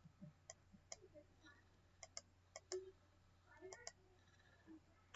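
Faint computer mouse clicks: a handful of sharp clicks, mostly in quick pairs like double-clicks, spread through an otherwise quiet room.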